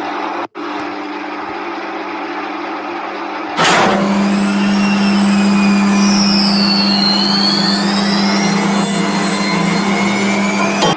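Washing machine running: a steady hum, then from about three and a half seconds in a louder whirring with a high whine that wavers in pitch as the drum spins.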